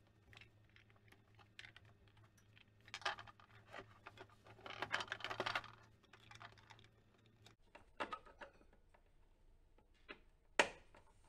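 Plastic clicking and scraping as a screwdriver works screws and clips out of a jump starter's plastic case, with scratchy stretches a few seconds in and one sharp click near the end. A faint low hum runs underneath and stops about two-thirds of the way through.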